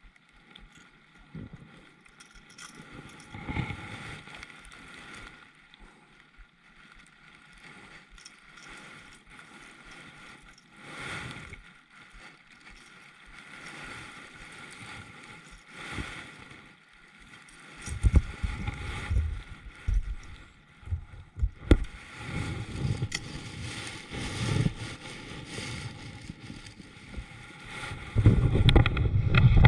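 Water moving around a fishing kayak, with wind gusts buffeting the microphone in low rumbling bursts from a little past the middle and again near the end.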